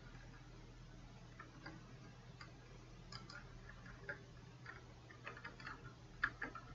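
Faint, scattered clicks of a computer mouse and keyboard, coming quicker and louder about five seconds in, over a steady low hum.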